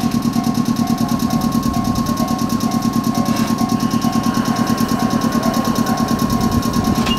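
A JR 105-series electric train standing still with an onboard machine, most likely its air compressor, chugging in a fast, even rhythm. A steady high tone and a beep repeating about twice a second run over it.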